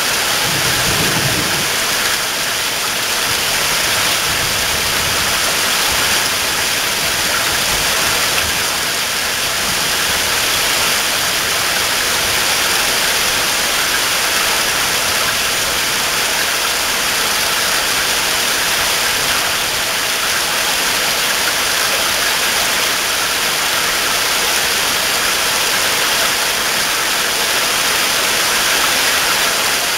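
Heavy rain pouring down in a summer downpour, a steady dense hiss. A brief low rumble shows up about a second in.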